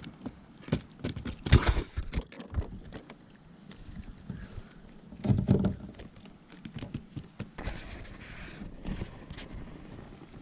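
Irregular knocks, taps and clatter against a fishing kayak, with two louder rough bursts about a second and a half in and again about five and a half seconds in.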